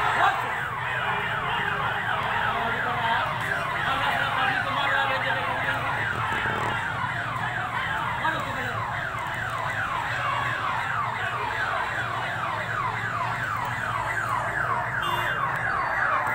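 An electronic siren in a fast yelp: one pitch sweep repeating evenly several times a second, steady and loud throughout.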